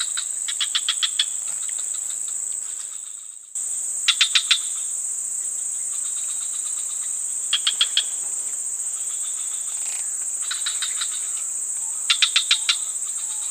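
Insects droning in a steady high-pitched hum, with short runs of rapid chirps every few seconds. The sound dips and cuts back in about three and a half seconds in.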